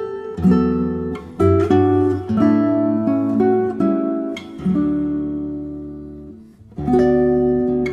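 Background music of a plucked acoustic guitar picking out notes. About halfway through, a chord is left to ring and fade away before the playing starts again near the end.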